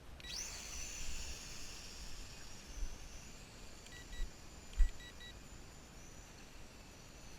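VISUO XS809HW toy quadcopter's motors and propellers spinning up to a high whine just after the start, then holding a steady buzzing whine. A few short electronic beeps sound about four to five seconds in, among some low thumps, the loudest of which is a sharp thump near five seconds.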